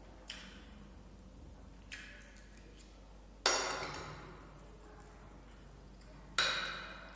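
Metal spoon clinking against a ceramic plate while eating: two light taps in the first two seconds, then two louder clinks about three seconds apart, each ringing briefly.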